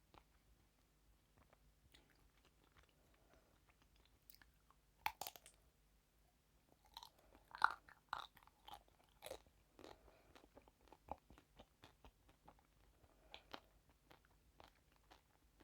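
Close-miked eating: crunchy bites and chewing, with a sharp crunch about five seconds in, a run of louder crackles a little later, then softer chewing clicks.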